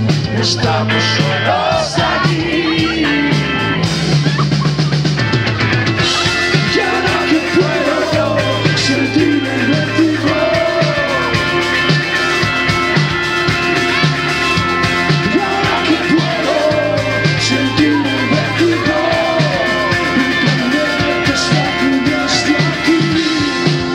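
Live rock band playing: a male singer over drum kit, electric guitar, bass and keyboards, with a steady beat.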